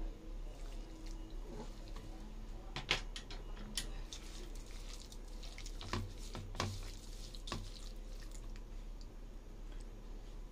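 A bare hand squishing and mashing steamed pumpkin with red sugar in a bowl: soft wet squelches with a few sharp clicks and knocks against the bowl, the clearest about three seconds in and again around six to seven and a half seconds.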